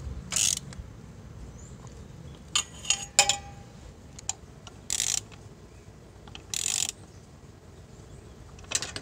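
A hand ratchet clicking in about five short runs, spread through the clip, as the radiator hose clamps and fasteners on a motorcycle are tightened.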